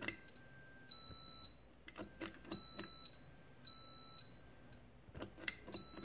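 An Arduino-driven button box plays a Simon game: a run of electronic beeps, each about half a second long, alternating between two or three pitches. Sharp clicks of the push buttons being pressed come between the tones.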